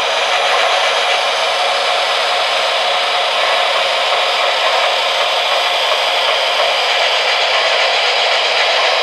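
Steady turbine hiss and whine from a Lionel PRR S2 turbine model's Legacy RailSounds sound system.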